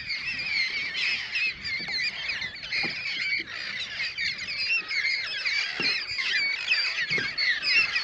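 A large flock of parrots calling all at once: a dense, unbroken chatter of many overlapping high squawks.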